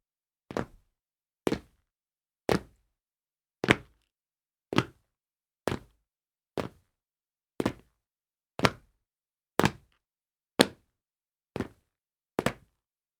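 Foley of jumps landing on a tile floor: a sharp thud about once a second, thirteen in all, some landing as a quick double hit, each with a short decay.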